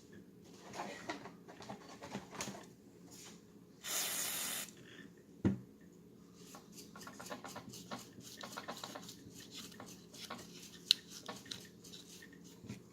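Scrubbing and rubbing on a polymer Glock-pattern pistol frame during cleaning. About four seconds in, a short hiss of aerosol spray lasts under a second, followed by a sharp knock.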